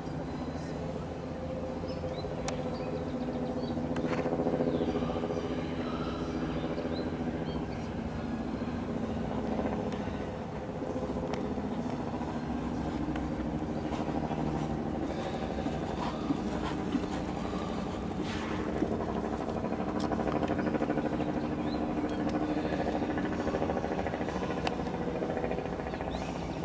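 A steady low mechanical hum, like an engine running at a constant speed, with a few faint clicks and knocks scattered through it.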